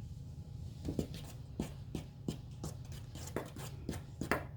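Hands squeezing and kneading soft, sticky slime in a bowl, making a string of short wet squelches and smacks, about three a second, starting about a second in, with the loudest near the end.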